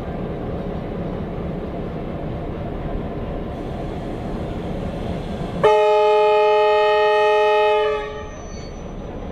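Train horn sounding one long blast of about two seconds, a chord of several held tones, over a steady low rumble from the standing train; it comes from the T-class diesel locomotive T356 at the head of the train.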